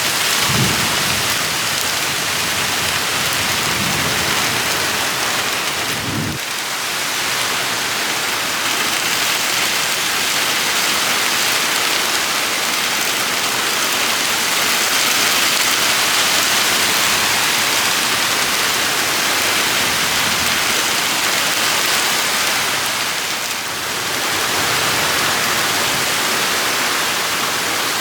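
Heavy rain pouring steadily, with a low rumble of thunder through the first six seconds or so that then dies away.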